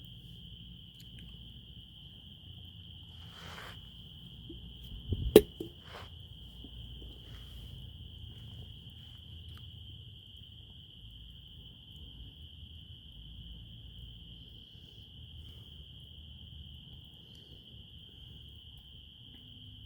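Insects trilling steadily on one high pitch over a low rumble, with a few sharp pops and crackles like burning wood in a fire. The loudest pop comes about five seconds in.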